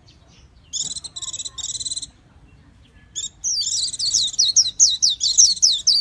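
Caged white-eye singing: two short, high warbled phrases, then after a pause of about a second a fast, loud run of high notes, each sliding downward, several a second.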